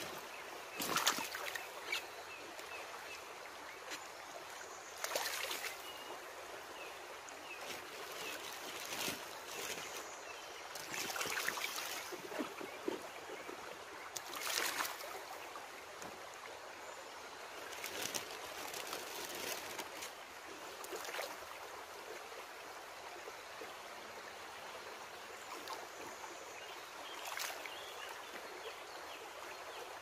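Shallow stream running steadily over gravel, with about ten short splashes at irregular intervals as vegetables are rinsed in the water by hand.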